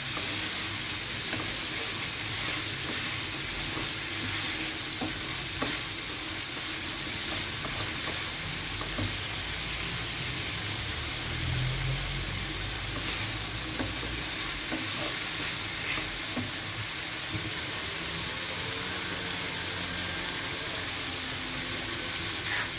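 Squid pieces sizzling in hot oil and butter in a frying pan, with a few light clicks as they are stirred. The heat is kept strong so the squid sears without giving off its water.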